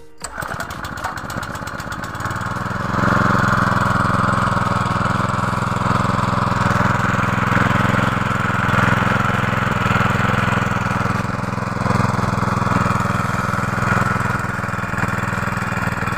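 Small gasoline engine of a portable irrigation water pump running, growing clearly louder about three seconds in and then running steadily under load as it pumps water.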